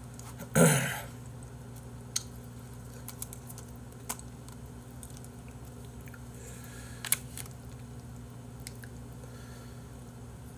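Quiet eating sounds: mouth chewing and a few sharp clicks of wooden chopsticks on food and plastic containers while a lettuce wrap of boiled pork is built, over a steady low hum. A brief louder noise comes about half a second in.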